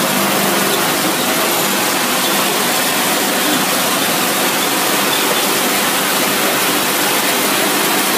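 Pet food extrusion line running: a steady, loud rushing hiss of motors and machinery, with a faint hum that fades about a second in.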